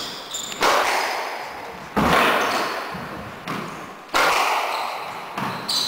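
Squash rally: the ball is hit by the rackets and smacks off the walls four times, about every one and a half to two seconds. Each loud hit has a lighter knock just before it and rings out in the walled court's echo.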